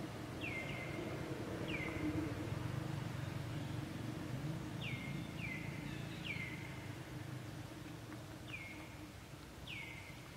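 Bird calls: short high chirps, each sliding quickly down in pitch, heard about eight times in loose groups, over a steady low background rumble.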